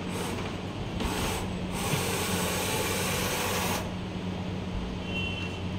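A CNC lathe's steady low machine hum. A loud, even hiss lasts about two seconds in the middle, and a brief high tone sounds near the end.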